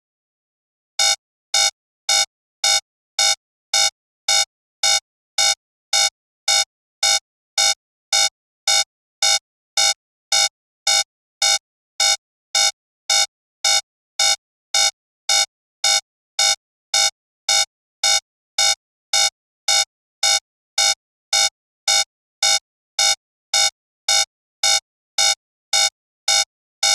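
Digital alarm clock beeping: a short, buzzy electronic beep repeating about twice a second, starting about a second in after silence. It is the alarm signalling that the ten-minute countdown has run out.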